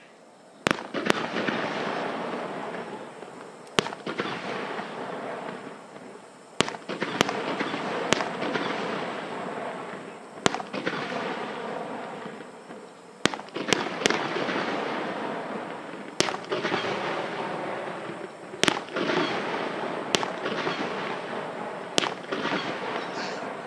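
Waterborne star-mine fireworks barrage: sharp bangs of shells bursting, about fifteen at irregular spacing, each followed by a dense crackling rush of noise that swells and fades before the next volley.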